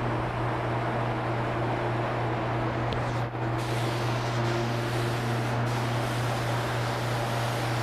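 Spray gun spraying paint: a steady hiss over the constant hum of its air supply, with a brief break about three seconds in.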